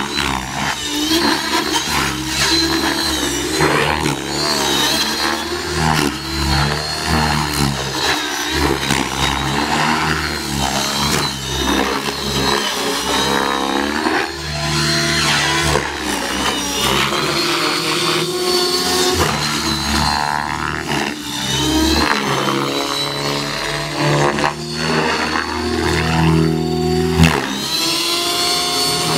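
Align T-Rex 600E electric RC helicopter in aerobatic flight: the motor's whine and the rotor blades rise and fall in pitch continually as the heli swoops and climbs.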